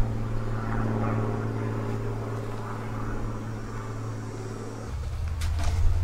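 A steady low hum with faint overtones, dropping lower and growing louder about five seconds in, then cutting off abruptly.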